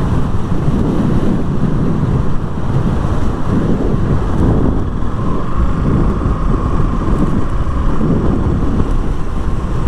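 Wind buffeting the microphone on a moving KTM Duke motorcycle, a heavy fluttering rumble with the bike's engine running underneath. A faint steady whine is heard through the middle.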